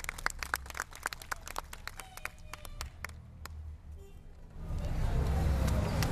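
A small group clapping by hand, the applause thinning to a few scattered claps about three seconds in. Near the end a loud low rumbling noise comes up.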